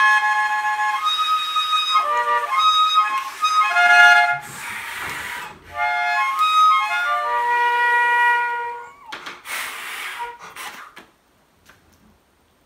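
Cheap plastic toy harmonica played as a closing tune: a run of high, clear single notes with the player's hands cupped around it, broken by breathy rushes of air. It stops shortly before the end.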